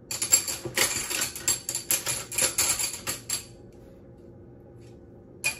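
Cutlery and utensils being rummaged through, a quick run of clattering and clinking for about three seconds that then stops.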